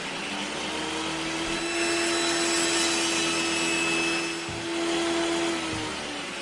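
An electric motor, such as a power tool or shop vacuum, runs steadily with a hiss and a held hum, then winds down and stops near the end.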